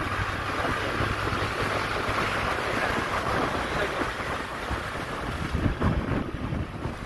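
Wind rushing over the microphone, with the steady noise of a moving vehicle underneath.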